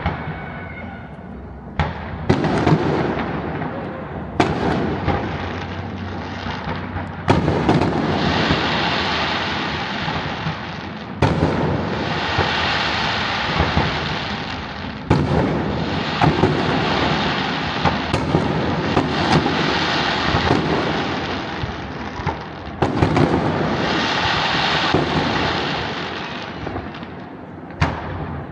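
Bonfire Night fireworks going off: sharp bangs every few seconds, each followed by several seconds of dense crackling.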